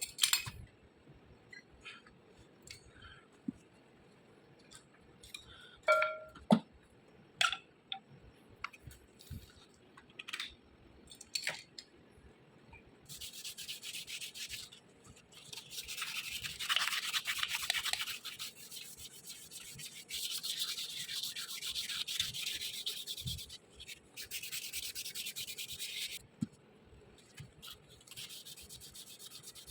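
Scattered light clicks and knocks of small metal parts being handled. Then, about halfway through, repeated stretches of quick back-and-forth rubbing or scrubbing by hand, each a few seconds long with short pauses between, like sanding or brushing a part clean.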